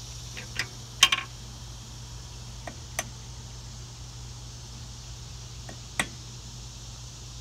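A hammer knocking on steel at the end mount of a backhoe arm's hydraulic cylinder: a few sharp metallic knocks, the loudest a quick cluster about a second in, with single lighter ones near three seconds and again at six seconds.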